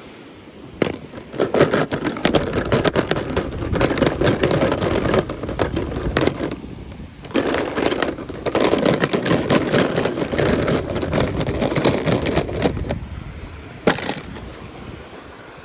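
Toy packaging being handled and unwrapped: dense crinkling and crackling in two long stretches with a short lull between them, and a sharp click near the end.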